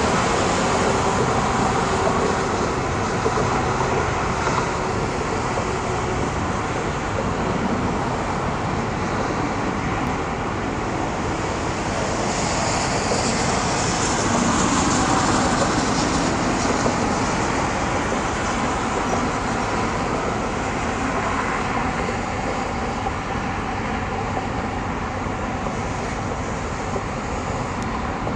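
Steady road traffic noise from cars and trucks on a busy multi-lane highway, a continuous hum that swells and eases a little.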